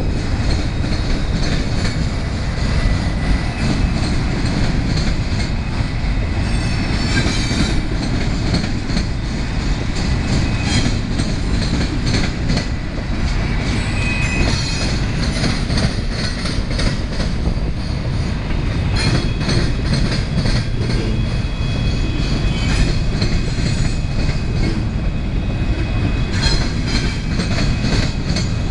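Freight train of double-stack container cars and autoracks rolling past: a steady loud rumble of steel wheels on rail, with recurring runs of clickety-clack over the rail joints and thin high wheel squeals now and then.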